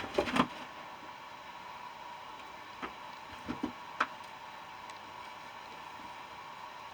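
A few light knocks and clicks from work on an air-conditioner compressor shell: two louder knocks at the start, then scattered lighter ones, the sharpest about four seconds in, over a steady faint hum.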